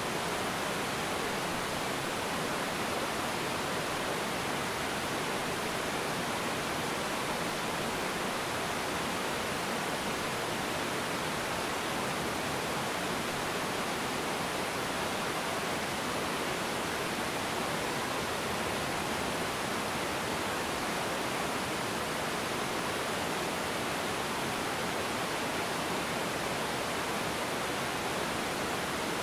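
Small river waterfall pouring over rocks, a steady, even rush of water that does not change.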